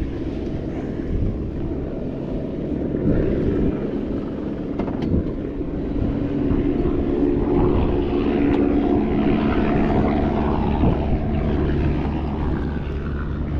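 Steady low engine drone with a humming note that grows louder through the middle and eases off near the end.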